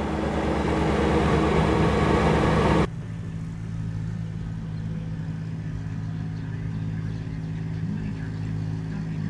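Kubota BX23D compact tractor's three-cylinder diesel engine running steadily under mowing load. About three seconds in the sound cuts abruptly to a quieter, steadier engine note.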